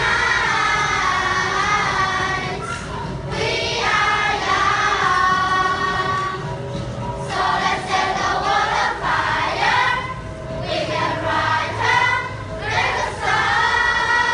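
A children's class choir singing an English-language song together, with long held notes and short breaks between phrases.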